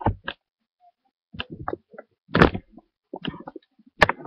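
Handling noise: a scatter of short knocks, bumps and rustles as the camera is moved about, with a larger bump about two and a half seconds in and a sharp knock near the end.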